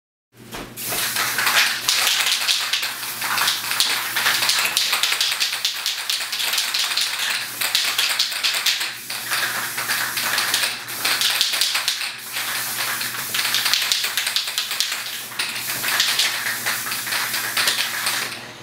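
Aerosol spray-paint can spraying a hissing, sputtering jet in quick successive bursts, with brief breaks about nine, eleven and twelve seconds in.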